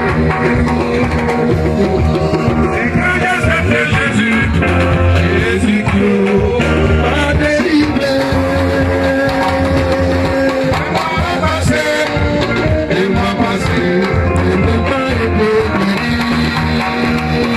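Music with a steady bass line and a singing voice.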